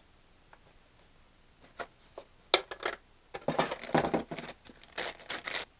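Handling noise from a plastic RC transmitter being moved over its box and foam packing: scattered clicks at first, then a run of knocks and rustles in the second half.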